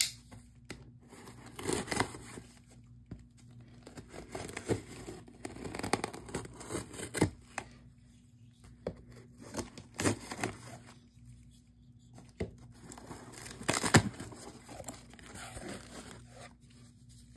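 Folding knife slitting filament packing tape on a cardboard box, then cardboard flaps being pulled open: a run of irregular scrapes, tears and crinkles. The loudest stroke comes a few seconds before the end.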